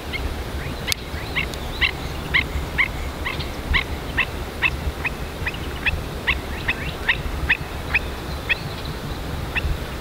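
An unseen bird calling with a run of short, high, falling notes, roughly two a second, stopping near the end, over a low rumble of wind on the microphone.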